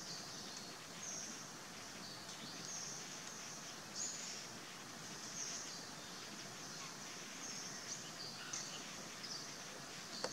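Outdoor forest ambience: a steady background hiss with short high-pitched chirps repeating roughly once a second.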